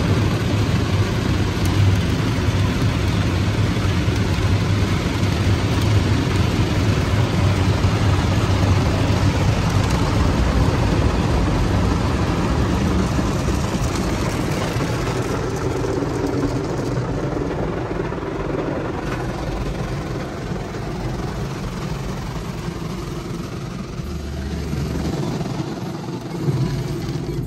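Automatic car wash's rotating brushes and water spray working over the car, heard from inside the closed cabin: a steady, loud rush of noise over a low hum, turning duller and a little quieter in the second half.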